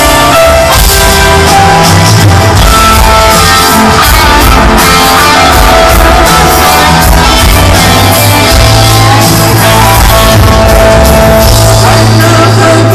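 Live rock band playing loud: piano, electric guitar and drums with vocals, heard from a distant seat in a stadium.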